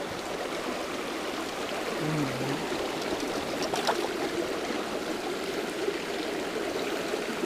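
Small, shallow mountain creek running steadily over rocks close by, a continuous babbling rush of water. A brief low hum of a voice comes about two seconds in.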